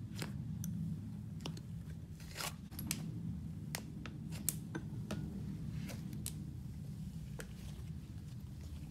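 Thick green slime being poked, squeezed and stretched by hand, with scattered small sharp pops and crackles.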